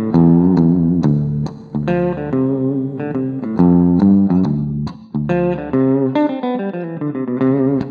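Electric guitar recorded through an amplifier, picked notes and chords ringing one after another. It is heard through a spectral noise-reduction preview while the reduction amount is being changed, so the amp's background noise is being taken down.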